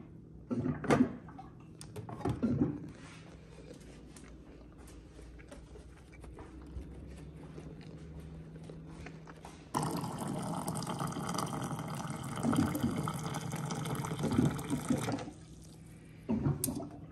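A water dispenser pours a stream of hot water into a stainless steel mug for about five seconds, starting about ten seconds in. A few knocks and clinks come near the start, and a low steady hum runs underneath.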